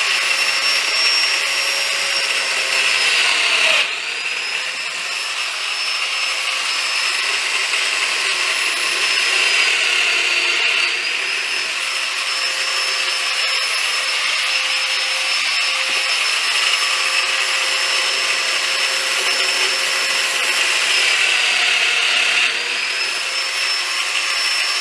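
Festool Domino joiner running steadily as it cuts mortises for domino tenons in a pine board. Its motor whine dips briefly in pitch and level a few times.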